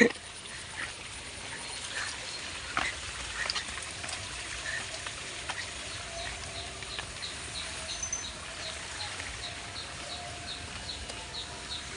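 A bird calling a long, evenly spaced series of short high notes, about three a second, starting about halfway through, over a steady background hiss with scattered clicks.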